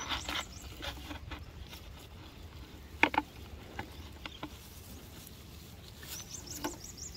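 Rustling and crackling of dry grass mulch and a plastic water bottle being handled as a bottle drip nozzle is pushed into the soil by a sapling. There is a sharp click about three seconds in and a quick run of light crackles near the end.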